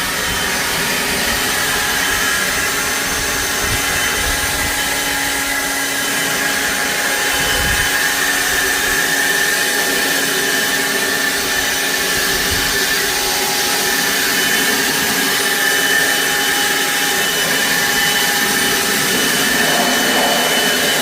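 DeWalt leaf blower running steadily at full blast, a loud rushing whine with a steady high tone, blowing rinse water off a motorcycle.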